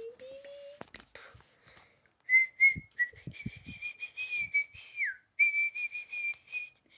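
Whistling: a high, wavering whistle tone in short repeated blasts lasting several seconds, dipping down in pitch once partway through.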